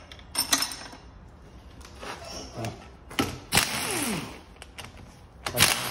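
Pneumatic impact wrench running in short bursts on the cylinder-head bolts of a Murat 124 engine, after a couple of metal clinks. The longest burst, about three seconds in, ends with the air motor winding down in pitch, and another burst comes near the end.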